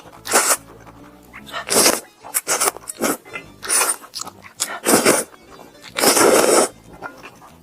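Close-miked eating of fried chicken: crisp bites and chewing in a series of short crunchy bursts, with one longer burst about six seconds in.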